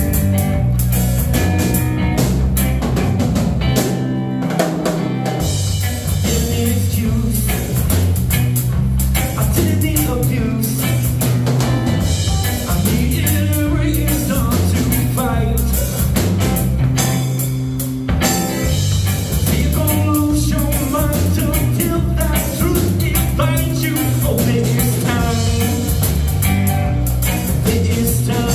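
Live rock band playing: electric guitar, electric bass and drum kit together.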